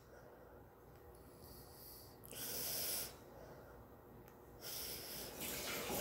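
A man breathing close to the microphone: hissy breaths a little after two seconds in and twice more near the end, with quiet room tone between.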